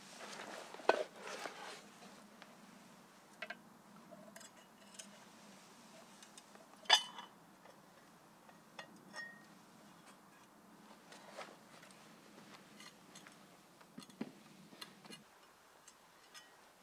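Rustling at a backpack as a long-handled metal sandwich iron is taken out, then metal clinks and knocks as its hinged iron arms are handled. The sharpest clank comes about seven seconds in, followed by scattered light clicks.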